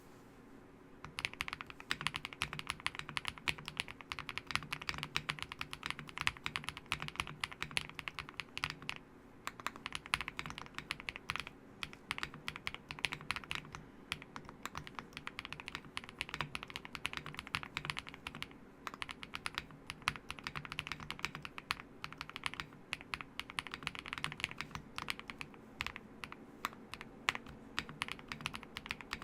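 Typing on a Meletrix Zoom98 mechanical keyboard with lubed MMD Aqua Kings switches, Drop DCX keycaps, a PC plate and full foams: a fast, continuous stream of key clicks starting about a second in, with a few brief pauses.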